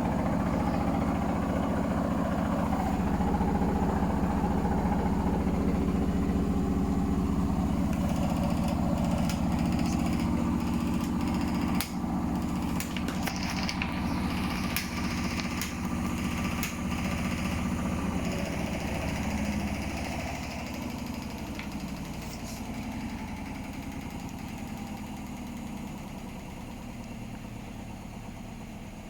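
Hotpoint Smart Tech washing machine spinning with a badly unbalanced load: the drum runs with a steady hum and a fast, even rattle, with a run of sharp knocks in the middle, then fades away over the last third.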